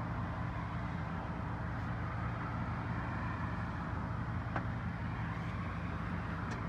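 A steady low mechanical hum, like a motor running in the background, with a light click about four and a half seconds in.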